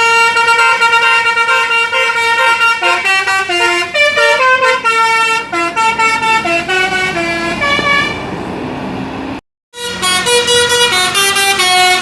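Tour bus 'telolet basuri' musical horn playing a tune of stepping notes. About eight seconds in, the tune gives way to a rushing noise, cuts out suddenly, and a horn tune starts again.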